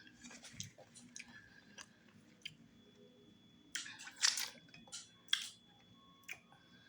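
Close-miked wet chewing of fufu with slimy okra stew and tripe: soft mouth clicks and smacks, with a few louder wet smacks about four and five seconds in.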